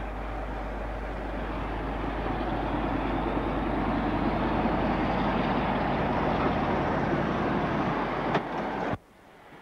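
British Rail Class 47 diesel locomotive's engine working hard under power as it hauls a freight train past, growing louder as it nears. A single sharp click sounds shortly before the sound cuts off abruptly near the end.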